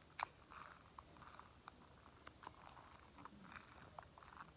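Slime being squished and played with in the hands: faint, sticky clicking and crackling, with one sharper pop about a quarter second in.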